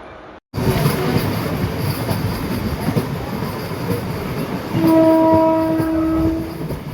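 MEMU electric train running with rail clatter, cutting in abruptly after a split-second dropout. About five seconds in, a train horn sounds once for nearly two seconds.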